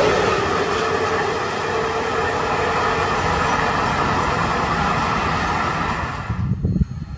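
Freight train of covered sliding-wall box wagons rolling past: a steady rush of wheel-on-rail noise with a faint, steady high tone under it. It cuts off abruptly about six seconds in, leaving an uneven low rumble.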